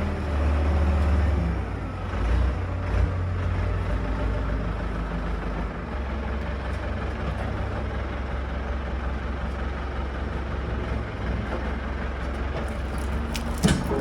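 Sawmill machinery running steadily with a low engine drone, and a sharp knock near the end.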